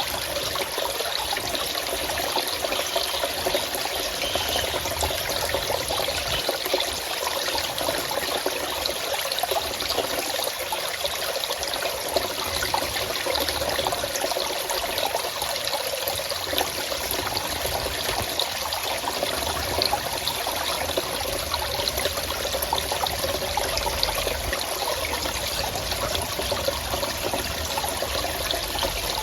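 Small stream or creek of water running and trickling steadily over rocks, a continuous babble with no change.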